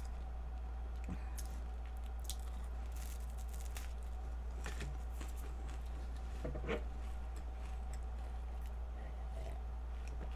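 Soft, close chewing of a flaky Nunettine puff-pastry cookie, with faint scattered crunches and small mouth sounds over a steady low electrical hum.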